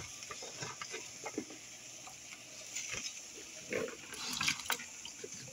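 Chopped nopal cactus strips being handled wet and tipped from a bowl into a pot of hot water: scattered soft squelches, light splashes and small knocks.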